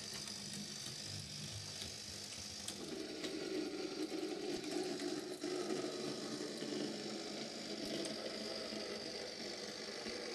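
Bachmann OO-scale Hong Kong tram model running on its track: a small electric motor's steady whirr with a light rattle of the wheels on the rails and occasional clicks. The tone shifts about three seconds in.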